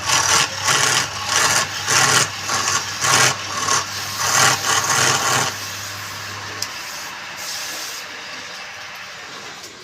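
Wood lathe motor humming steadily while something rasps against the turning wood in quick strokes, about two a second. The strokes and the motor hum stop about five and a half seconds in, leaving a fainter hiss that fades away.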